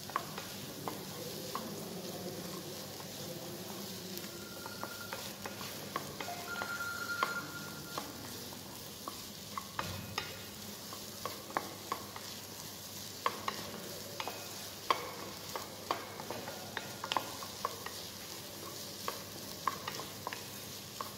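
Diced vegetables (tomato, beans, zucchini) sizzling steadily as they sauté in a small saucepan on a gas burner, while a wooden spatula stirs them, scraping and tapping against the pan in irregular clicks that come more often in the second half.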